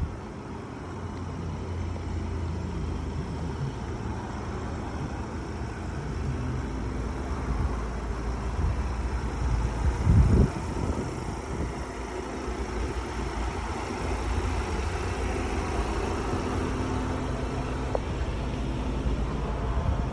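Ford Transit 2.0 TDCi diesel engine idling steadily, a low even hum. A brief low buffeting rumble about ten seconds in.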